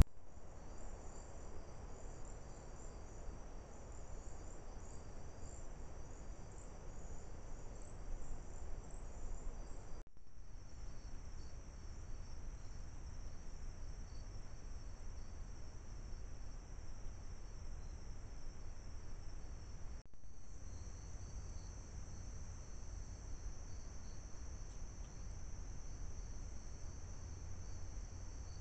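Night chorus of crickets: a steady high-pitched trill over faint low background noise, breaking off briefly twice.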